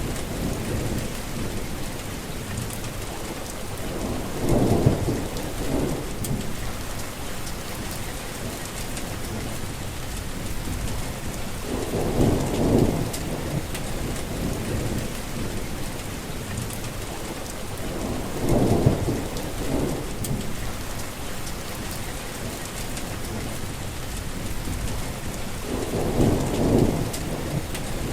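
Heavy rain falling steadily, with four short low rumbles of thunder spaced about seven seconds apart.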